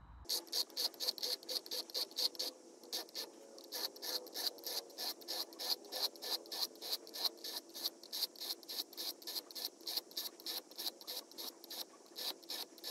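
Annihilator broadhead blades scraped back and forth on a wet coarse sharpening stone, sped up into a fast rhythm of short scrapes about four a second.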